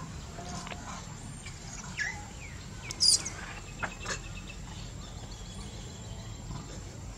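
A few short, high-pitched animal calls with bending pitch, the loudest and shrillest about three seconds in, over a steady low outdoor background hum.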